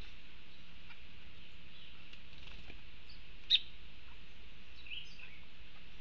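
Scattered short calls of wild birds over a steady hiss, with one sharp, louder call about three and a half seconds in.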